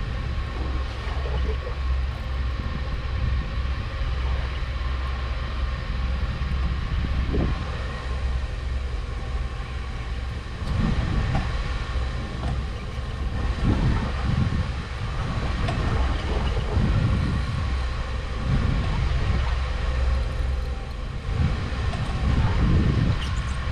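Boat engine running with a steady low rumble and a faint constant whine; from about eleven seconds in, irregular low surges rise and fall over it.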